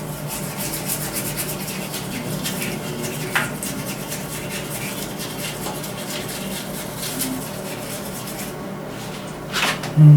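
Brush scrubbing a Honda CB400 cylinder head in rapid back-and-forth strokes, with a click a few seconds in. The scrubbing stops about eight seconds in, and a single swish follows near the end.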